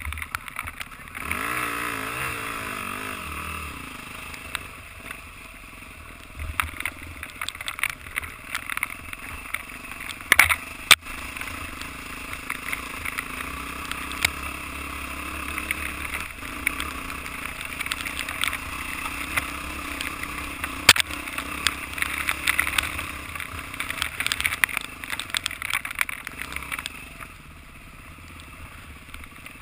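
Enduro dirt bike engine running under way on a rough trail, its pitch rising and falling in the first few seconds. Sharp knocks and clatter from the bike going over bumps are scattered throughout, the loudest about ten and twenty seconds in.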